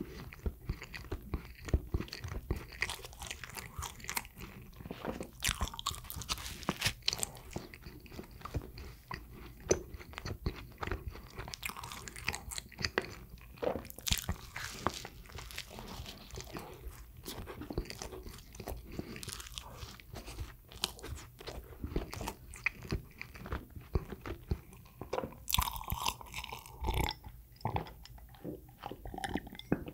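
A person chewing and biting bread close to the microphone: a dense, continuous run of short mouth clicks and smacks, with a brief louder stretch near the end.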